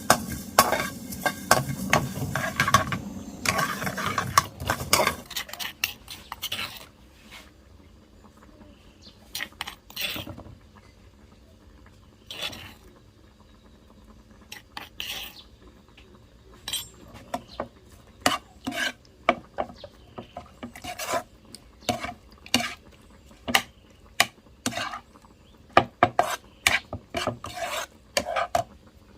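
Stir-frying in a pan, a utensil scraping and stirring through sizzling food, which stops about five seconds in. Then scattered clinks and knocks of kitchen utensils against cookware, coming more often near the end.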